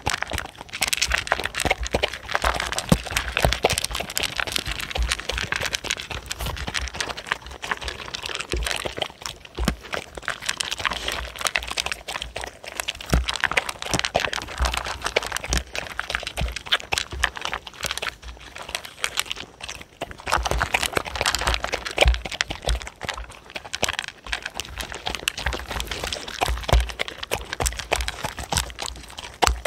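Two dogs crunching and chewing dry kibble close to a microphone: a dense, unbroken run of crisp crackling crunches, with low knocks as muzzles and kibble hit the food mat.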